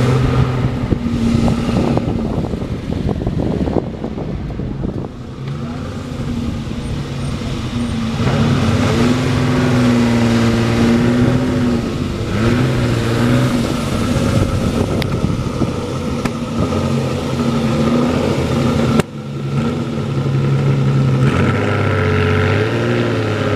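Ferrari 250 GT's three-litre V12 running at low speed. Its note rises and falls with the throttle, with a few quick rises in pitch near the end.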